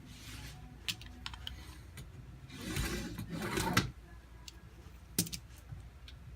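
Hands-on window screen repair: scattered light clicks and clatter from the frame, screen and tools, with a louder scraping, rustling stretch about three seconds in.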